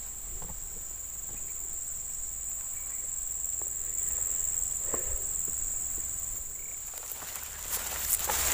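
Steady high-pitched chirring of insects such as crickets. Near the end, footsteps rustle and crunch through dense grass and brush.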